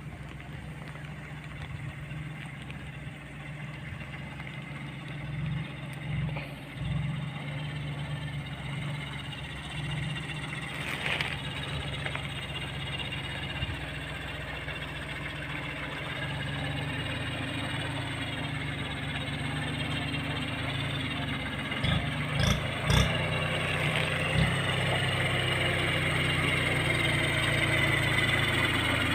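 Tractor engine running steadily and growing gradually louder, with a few sharp knocks about twenty-two seconds in.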